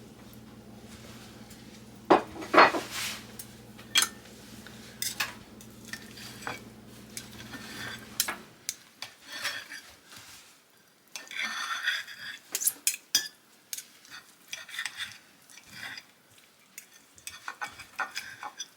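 Cutlery and serving utensils clinking and scraping against plates and a baking dish as chicken is served. A steady low hum runs under it and cuts off about eight seconds in.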